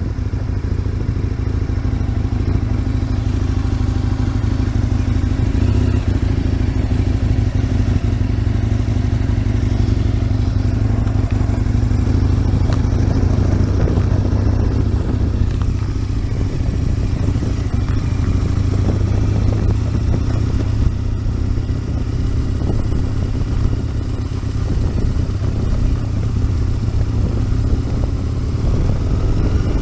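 Aprilia RSV Mille 1000's 998 cc V-twin engine running steadily under way on a ride, its exhaust quite loud.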